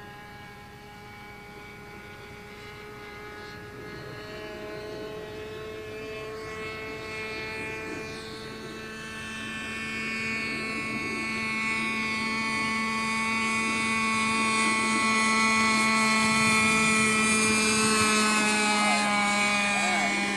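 OS .46 two-stroke glow engine of a lawnmower-shaped RC model airplane buzzing steadily in flight, getting louder over the second half as the plane comes closer.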